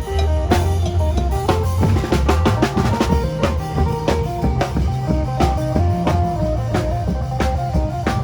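Isan phin band music in lam phloen style: a phin lute picking a quick melody over a busy drum kit beat and deep bass.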